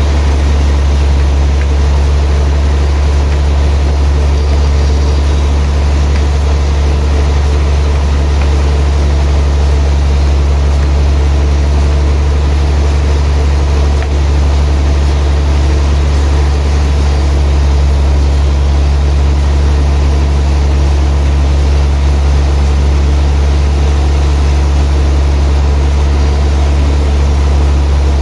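Loud, steady low machine drone with faint steady higher hum tones; it barely changes except for a brief dip about fourteen seconds in.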